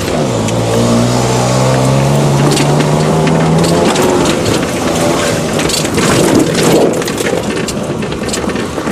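Chevy Sprint's small three-cylinder engine revving hard as the car is driven fast over rough ground, its pitch climbing at the start and then held. From about four seconds in the engine sound is swamped by rattling, knocks and brush scraping against the car.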